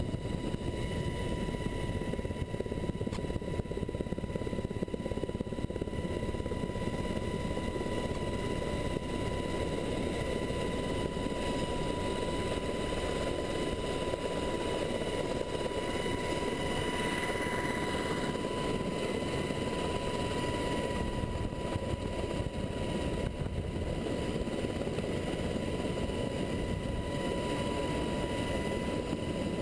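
MH-60S Sea Hawk helicopter heard from inside its cabin: a steady rotor and engine rumble with a constant high-pitched whine over it.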